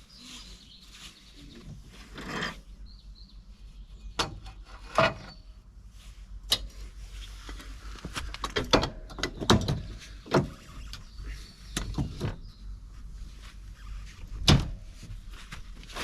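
An irregular series of sharp knocks, clunks and clicks, about a dozen, like hard objects being handled and set down, with the loudest around the middle and near the end.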